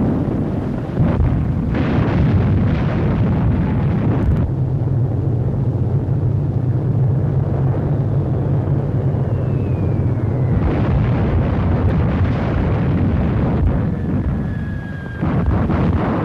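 Battle sound effects on an old film soundtrack: rumbling explosions and gunfire, then a steady aircraft engine drone from about four seconds in. A whistle falls in pitch, and explosions rumble again from about ten seconds in.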